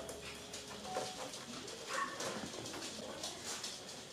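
Seven-week-old poodle puppies playing, with small scuffles and a couple of short, high whimpers about one and two seconds in.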